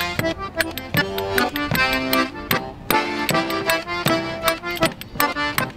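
Concertina playing the instrumental break of a traditional folk song in held, steady chords, over a rhythmic clicking beat from hand-held percussion.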